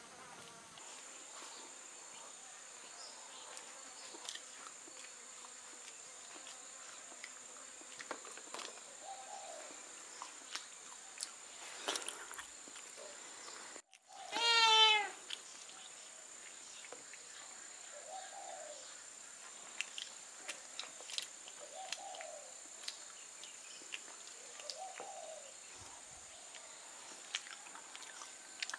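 A cat meows once, loud and about a second long, about halfway through, over a steady high-pitched insect drone. Faint scattered ticks and a few soft short calls sound in the background.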